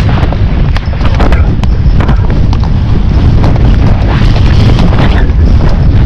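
Heavy wind buffeting the microphone of a camera on a galloping horse's rider, a continuous low rumble. Irregular sharp hoof strikes and knocks come through it.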